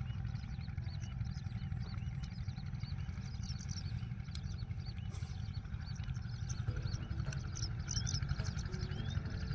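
Many small birds chirping over a steady low rumble, with a few rising whistled notes near the end.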